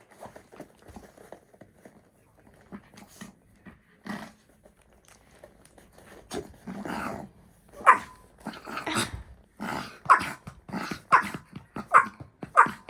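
Dog growling during tug-of-war play with a toy, then a run of short, sharp barks about once a second near the end.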